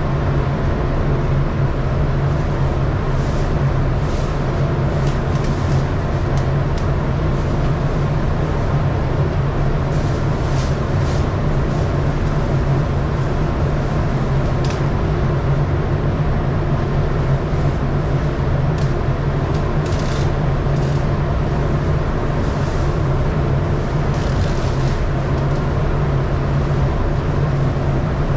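Paint booth ventilation fan running steadily, a constant low hum under an even rush of air, with a few faint scattered clicks.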